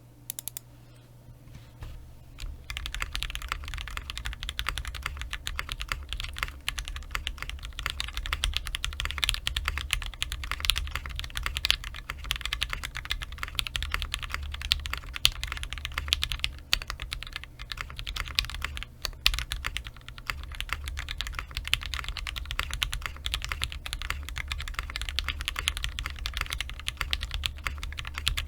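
Fast, continuous typing on a 60% mechanical keyboard with Durock L7 linear switches, lubed and filmed, in a brass-plated Tofu case with GMK keycaps. A few separate key presses come first, then steady typing from about two and a half seconds in, with one louder key stroke past the middle.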